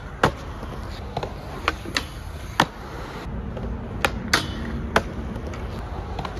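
Skateboard on a concrete bump-to-bar: wheels rolling on concrete and a string of sharp clacks as the board hits the metal bar and the ground, on a missed Smith grind attempt. The loudest clacks come about two and a half and four and a half seconds in.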